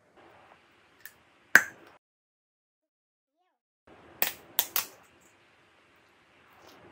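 Sharp plastic snaps and crackles of a candy wrapper being torn open by hand: a single loud snap, then three quick snaps in a row a couple of seconds later.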